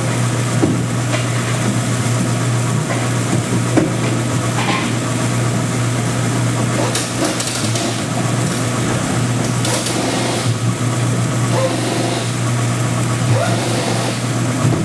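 Oil-water separator machine running: its motor and pump give a steady low hum with a mechanical clatter, and a few short knocks.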